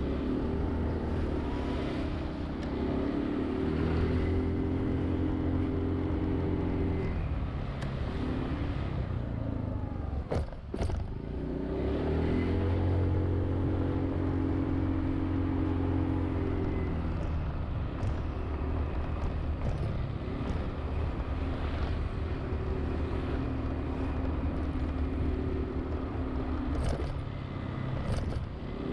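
Honda Zoomer-X scooter's single-cylinder engine running under way through traffic, with a steady haze of road and wind noise. The engine note drops away for a moment about ten seconds in and then picks up strongly again.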